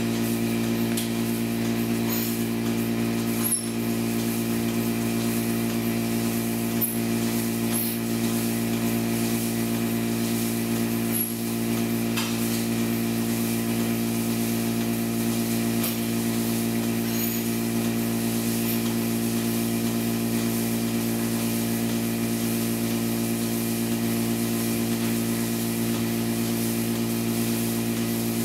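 Goat milking machine running: a steady mechanical hum, with a few faint clicks and knocks from the milking units now and then.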